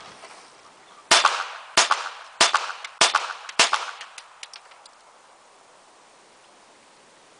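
A pistol fired one-handed in a quick five-shot string, about one shot every 0.6 seconds, each shot trailing an echo. This is a rapid-fire pistol series of one shot per target across five targets.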